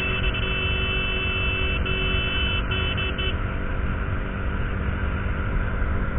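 Motorcycle riding at speed, its engine under heavy wind rush on the camera. A vehicle horn sounds over it: one long blast, then three shorter ones, stopping about three seconds in.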